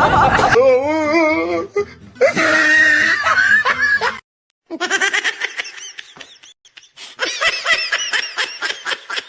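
People laughing in short edited clips. Near the middle it cuts to silence for about half a second, then comes a long stretch of rapid, choppy laughter.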